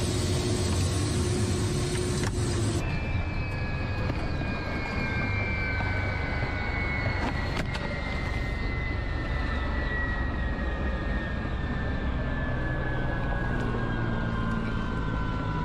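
Military helicopter's turbine engines and rotor running, heard from inside the cockpit as a steady noise with a low drone. About three seconds in the sound changes, and a high whine then slowly falls in pitch.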